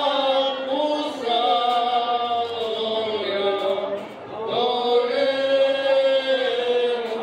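Slow sung hymn with long, drawn-out notes that bend gently in pitch, breaking briefly about four seconds in before the singing picks up again.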